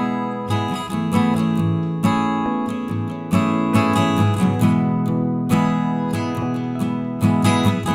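Background music: acoustic guitar strumming and plucking a steady rhythmic pattern.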